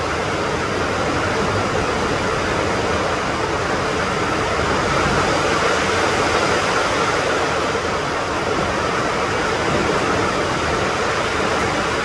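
Heavy rain falling steadily on tiled roofs and palm trees, an even hiss with no let-up.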